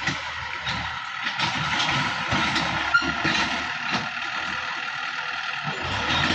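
Kubota M6240 tractor's diesel engine running steadily as the tractor pushes soil with its front dozer blade, with scattered knocks over the engine noise.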